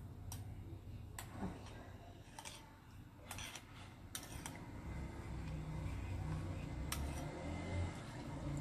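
A metal spoon clicking and scraping against a small ceramic bowl in a few faint, scattered taps while a yeast-and-water mixture is scooped out and poured onto flour, with a low rumble in the background in the second half.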